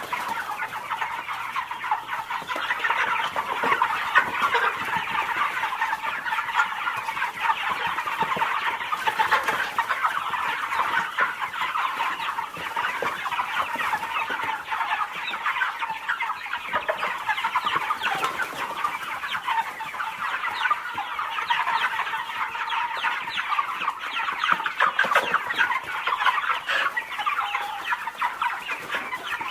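A large flock of birds calling all at once, a dense, continuous chatter of many short overlapping calls.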